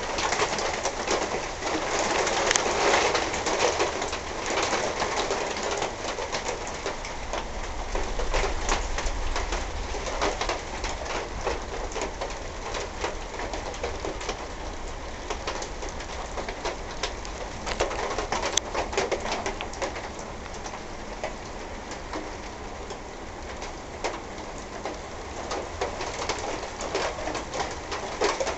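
Heavy thunderstorm rain from a squall line falling steadily, with a dense spatter of drops hitting nearby surfaces.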